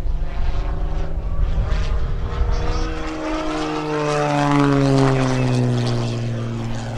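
Single-engine propeller aerobatic plane passing close, its engine and propeller tone loudest about five seconds in and dropping in pitch as it goes by, then pulling up into a climb.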